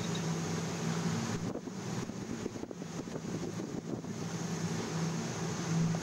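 Steady low drone of a ship's engines heard from inside, over a wash of wind and sea noise. In the middle, for a couple of seconds, the drone breaks up under irregular rustling and rattling.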